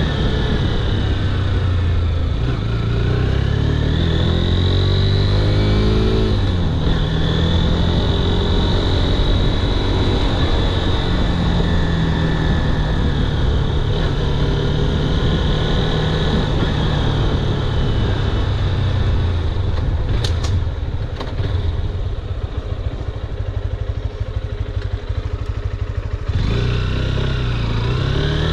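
Honda CB200X's single-cylinder engine running under way with wind rushing past. The engine pitch climbs and then drops sharply about six seconds in, runs steadily, eases off and quietens past the middle, then picks up again near the end.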